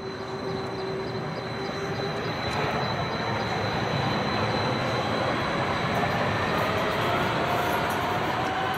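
BLT Stadler Tango tram approaching and running past on overland track: wheel and running noise grows louder over the first few seconds and then holds, with a faint whine rising in pitch in the second half.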